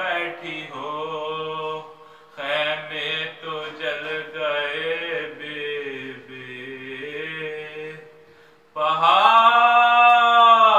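A male voice recites a Muharram salam, an Urdu elegiac verse, unaccompanied, in a slow, mournful chant-like melody. The phrases are broken by short pauses, and near the end it rises into a long, loud held note.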